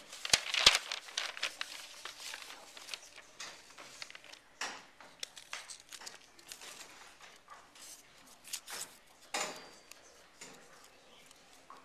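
Paper and plastic being handled and crinkled, an irregular rustle with scattered sharp clicks. The loudest are two sharp knocks under a second in, and the sound thins out near the end.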